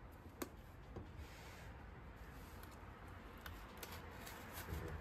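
Faint rubbing and rustling of a cardboard template being handled and fitted into a wooden chair's seat frame, with a sharp click about half a second in and a few light ticks later.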